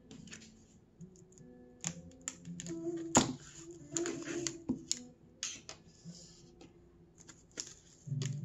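Knife blade slitting and picking at the clear cellophane shrink-wrap on a small cardboard box: a run of sharp clicks and taps with short rustles. Near the end the plastic wrap crinkles as it is peeled back.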